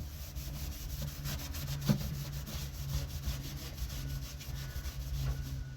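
A cloth rubbing back and forth over painted metal on a 1956 Ford truck, polishing stained paint, in a quick run of repeated hand strokes.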